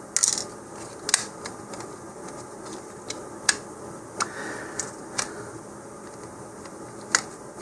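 Small clicks and taps of the hard plastic parts of an Estes Ghost Chaser snap-together model rocket being handled while the retainer clip and fins are taken off, about half a dozen sharp clicks scattered over several seconds.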